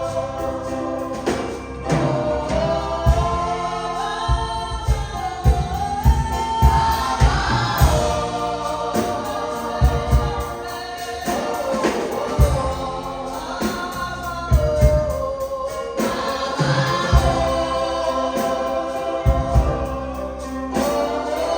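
Gospel worship song sung by a choir with music accompaniment, with regular low drum beats under the voices.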